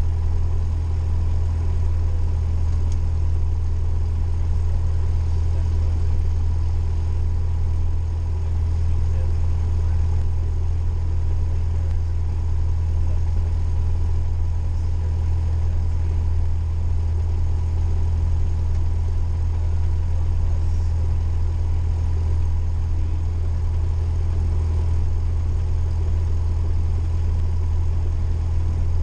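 Cessna 172's piston engine running steadily at low power, a constant deep drone heard inside the cabin, while the aircraft sits on the ground for its pre-takeoff checks.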